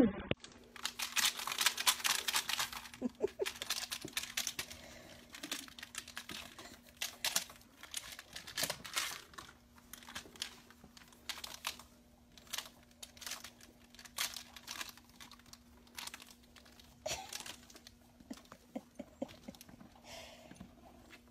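Irregular rustling and crinkling with soft crackles, densest in the first few seconds, as a horse's muzzle nuzzles a blanket and hanging crinkle toys on a baby's car seat. A faint steady hum runs underneath.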